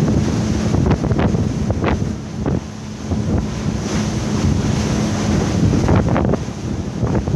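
Wind buffeting the microphone on a moving motorboat, over a steady engine drone and repeated slaps of the hull against choppy water.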